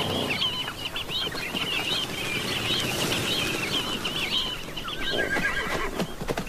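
A flock of Namaqua sandgrouse calling, many short warbling calls overlapping. About five seconds in, a horse whinnies, and a few hoof knocks follow near the end.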